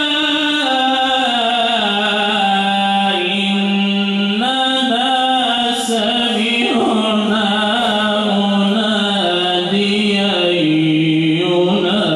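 A man chanting solo and unaccompanied into a microphone, holding long notes that step up and down with ornamented turns.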